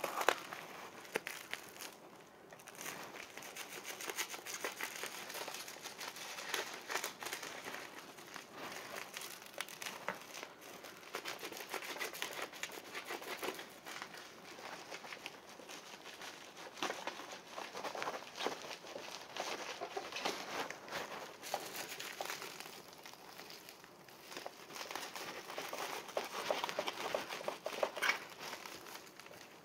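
Plastic bubble wrap being handled and pulled off a box by hand: continuous crinkling and crackling with many small clicks.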